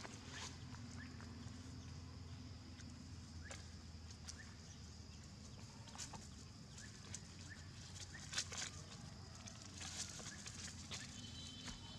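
Long-tailed macaques scuffling and scampering over dry leaves and dirt: scattered short rustles and clicks over a faint steady hum, busier about eight to ten seconds in as one monkey chases another.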